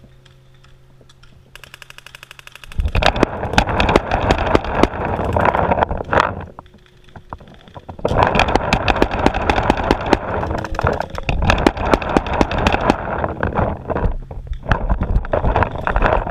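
Paintball markers firing: a quick, even string of shots about two seconds in, then dense overlapping volleys of rapid shots with a short lull in the middle.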